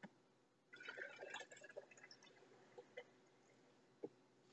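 Near silence with faint kitchen handling sounds: a brief cluster of small, soft noises about a second in, then a few soft clicks.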